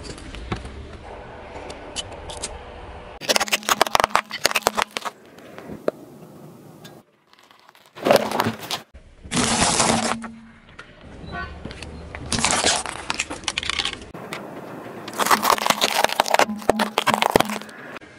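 A car tyre rolling slowly over objects on asphalt and crushing them, in about four separate bursts of cracking, crunching and scraping. The first burst is a row of plastic disposable lighters breaking under the tyre.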